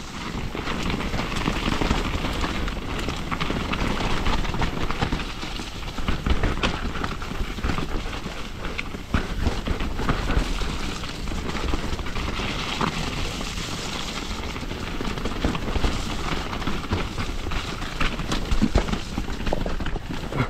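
Mountain bike rolling down a wet, rocky dirt trail: a continuous rumble of knobby tyres over dirt and rock, with frequent clicks and knocks as the bike rattles over roots and stones.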